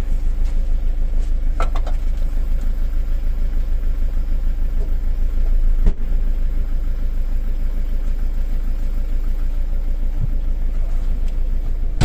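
Car engine idling steadily, heard from inside the cabin. One sharp thump about six seconds in as the boot lid is slammed shut.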